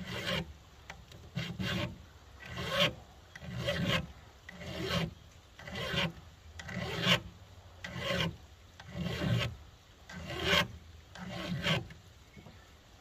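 Flat file rasping down a chainsaw chain's raker (depth gauge), about eleven even strokes at roughly one a second, stopping shortly before the end.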